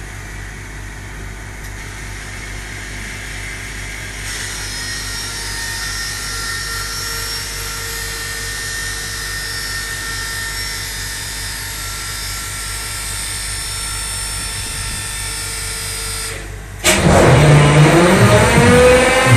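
Steady hum and whine of running machinery, then about 17 seconds in the SD40 locomotive's EMD 16-645 V16 two-stroke diesel cranks and fires, its pitch rising as it speeds up. This is the engine's first start after a cylinder head was replaced to cure a coolant leak.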